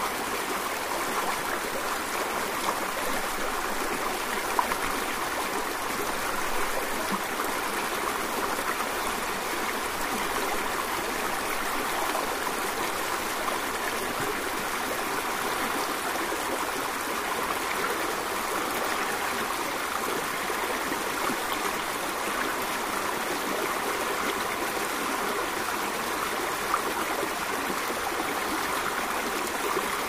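Running water rushing steadily, as from a waterfall: an even, unbroken hiss with little deep rumble.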